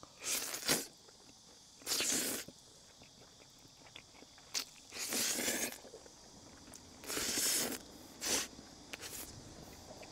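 A series of short crunching, scraping sounds, about six in all, coming at irregular intervals.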